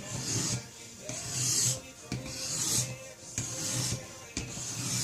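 Sharpening stone of a Riorand guided knife-sharpening kit rasping along a knife blade in five steady pushing strokes, about one a second, grinding the edge toward a new bevel angle.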